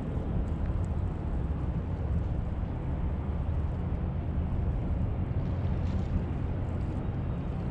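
Steady low rumble of wind on the microphone over open-air harbour background noise, with no distinct events.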